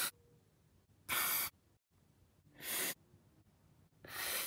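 A person breathing heavily in and out: four breaths spaced about a second and a half apart.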